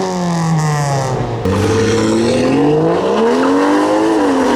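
Car engine revving as it drives past. The pitch falls, breaks off abruptly about a second and a half in, climbs again and eases off near the end.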